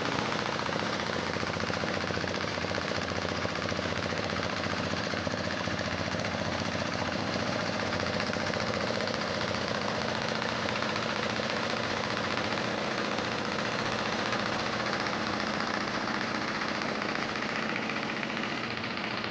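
Sveam 25 HP diesel engine running steadily, driving a 6-inch Niagara water pump, with a fast, even knocking beat.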